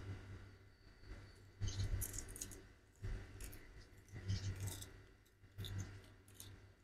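Cats eating tuna scraps: small chewing and smacking clicks in short bursts about once a second, over a low steady hum.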